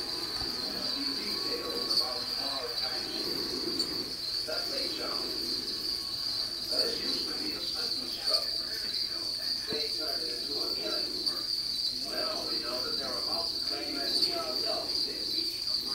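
A cricket trilling steadily on one high note without a break, with a faint low murmur beneath it.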